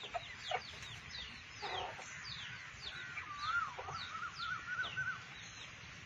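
Aseel chickens in a pen giving a few low clucks, over a run of short, high, falling chirps about twice a second, with a wavering call near the middle.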